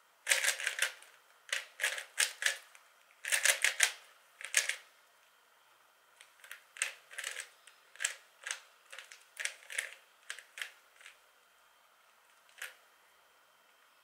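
A 3x3 plastic Rubik's Cube being turned by hand, its layers clicking as they snap round. The clicks come in quick runs of several turns, with short pauses between, and a single turn near the end.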